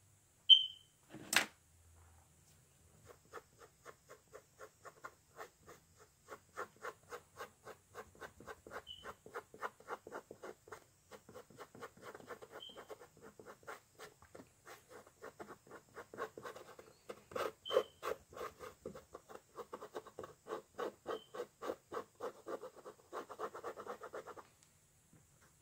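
Paintbrush scrubbing acrylic paint onto a canvas in quick repeated strokes, several a second, stopping near the end. Two sharp knocks sound in the first second and a half, and a few brief high chirps come now and then.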